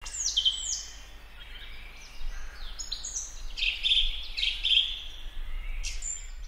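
Songbirds chirping and singing: a steady run of quick, high whistled notes, each sliding down in pitch.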